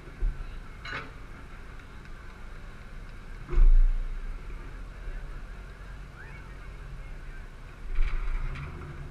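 Nissan Titan's VK56 5.6-litre V8 idling, heard through a hood-mounted camera, a steady low rumble. A few sudden low thumps break in, the loudest about three and a half seconds in.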